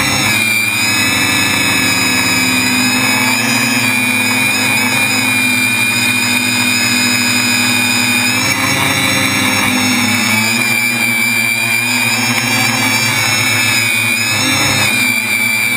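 SK450 quadcopter's four brushless motors and propellers whining in flight, heard close up from the drone's onboard camera. The whine holds steady, its pitch wavering slightly as the throttle changes.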